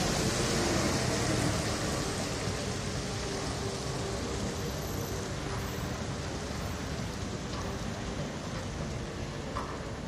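Street traffic on a wet, snowy road: a steady hiss of tyres on slush, loudest at first as a truck passes close, then slowly fading.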